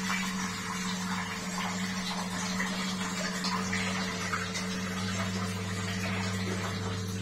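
Water poured into a hot kadhai of fried masala and potatoes, setting off a continuous hiss and sizzle, over a steady low electrical hum.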